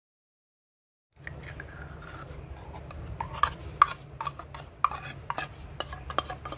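Dead silence for about a second, then a metal spoon scraping and clinking against a tin and the rim of a mixing bowl as thick kaya (coconut jam) is scooped into cake batter. The sharp clicks come thicker in the second half, over a low steady hum.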